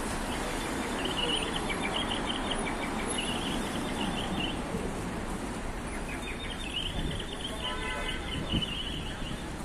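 Busy city street ambience: a steady hum of traffic and passers-by, with repeated bursts of high bird chirping.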